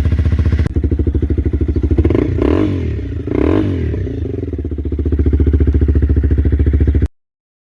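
Honda CBR250R's single-cylinder engine idling with an even pulse, revved briefly twice about two and three and a half seconds in, then settling back to idle before cutting off suddenly near the end.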